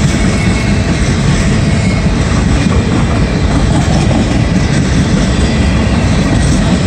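Empty freight train of hopper cars rolling past at speed: a loud, steady rumble of steel wheels on rail.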